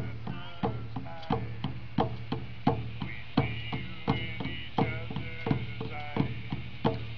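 Native American hand drums beaten with a beater in a steady beat, a strong stroke about every 0.7 seconds with lighter strokes between, with faint singing under the drumming.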